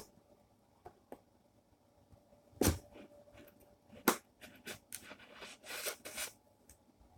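Hands working at a cardboard toy box to get its top open: a few sharp knocks and clicks, then a spell of scraping and rustling of the packaging.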